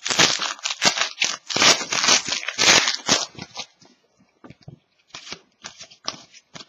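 Trading cards being handled: cards sliding and flicking against each other in quick rasping strokes for about three and a half seconds, then a few lighter clicks and taps.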